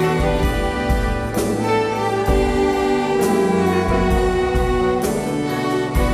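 Orchestra playing sustained chords over a bass line that shifts every second or so, with regular percussion hits.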